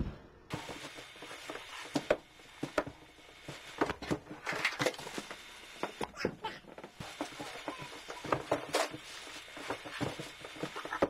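A person scrambling into a headstand on a carpeted floor against a wall: irregular bumps, shuffling and rustling of clothing.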